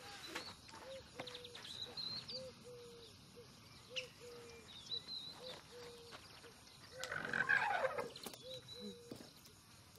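Outdoor animal calls: a short low call repeated over and over, with higher chirps and a louder falling call about seven seconds in.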